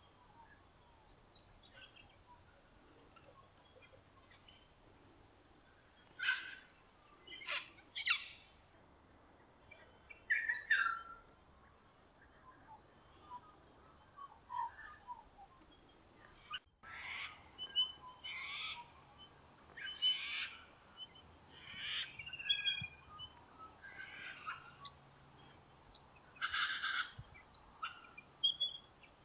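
Wild birds chirping and calling in short, scattered phrases over a quiet bush background, with a few sharper chirps standing out.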